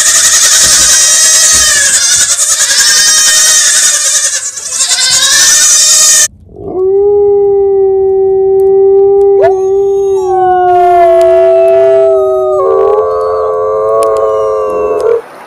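A penful of goat kids bleating all at once in a dense chorus, cut off abruptly about six seconds in. Then wolves howling: one long steady howl, joined by a second, higher voice and then more, into overlapping howls at different pitches that stop abruptly near the end.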